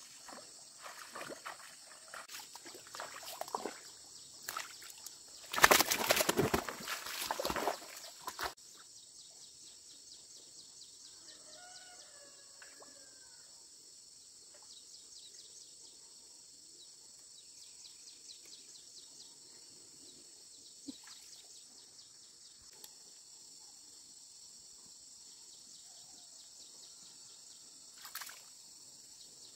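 Bare feet wading and splashing through shallow muddy water in a flooded rice paddy. A burst of heavier sloshing comes about six seconds in, then a long quieter stretch, and a short splash near the end as hands reach into the water. A steady high buzz and a few faint bird calls sit in the background.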